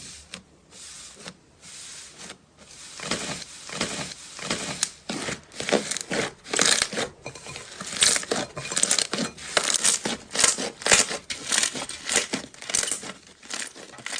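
Crinkling and rustling: a fast, irregular run of short scratchy bursts, getting louder about three seconds in.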